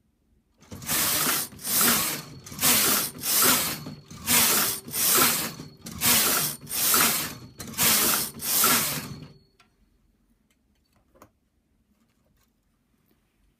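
Brother knitting machine carriage pushed back and forth across the metal needle bed, knitting plain rows: ten quick passes, roughly in pairs, then it stops about two-thirds of the way through.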